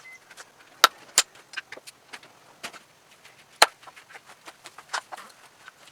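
Irregular sharp knocks and clicks of small pieces of kindling wood being cut and handled, with a few louder cracks about a second in and again past the halfway point.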